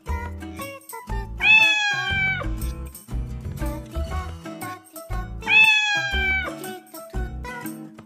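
Domestic cat meowing twice, two long meows about a second each and about four seconds apart, each falling slightly in pitch, over background music with a steady beat.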